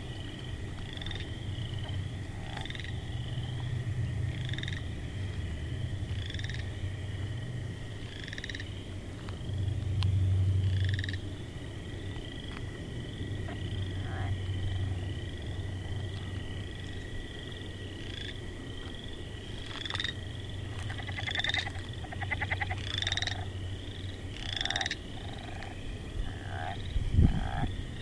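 Night chorus of frogs: short high chirps repeat about twice a second over a steady high tone, with rapid pulsed trills joining in past the middle and a low drone underneath. A low thump comes near the end.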